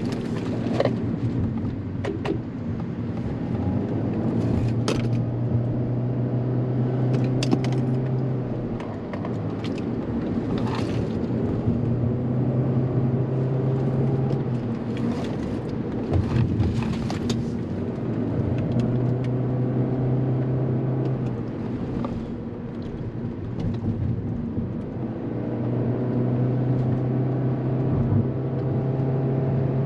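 Toyota car's engine and tyre noise heard from inside the cabin while driving. A low engine drone swells for a few seconds at a time and then eases, several times over, with occasional sharp clicks.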